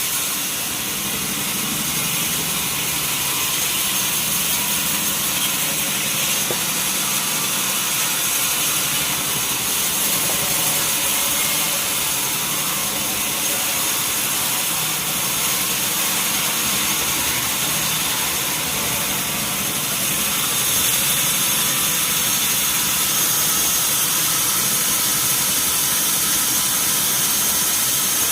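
Sawmill wheel saw machinery running steadily: a continuous mechanical noise with a thin, steady high whine over it.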